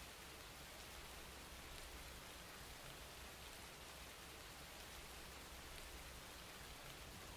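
Light rain falling, a faint steady hiss with no separate drops standing out.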